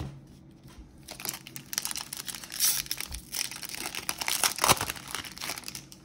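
A baseball card pack's foil wrapper being torn open and crinkled: a rapid run of crackles that starts about a second in and is loudest about three quarters of the way through.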